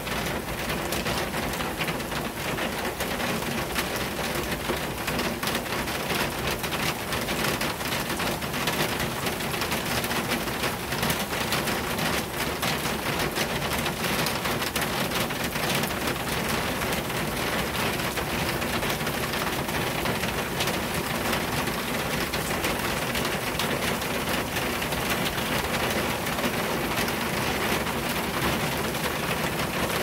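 Heavy rain drumming on an acrylic awning and splashing on a wet street: a dense, steady patter of countless drop hits.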